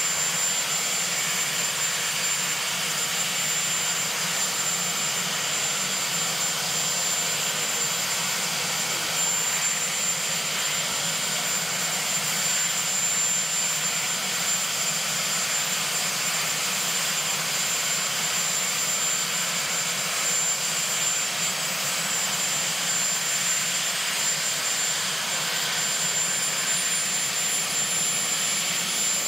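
Marine One, a Sikorsky VH-3 Sea King helicopter, running on the ground with its twin turboshaft engines going and the main rotor turning: a steady, loud turbine rush with a thin high whistle held throughout.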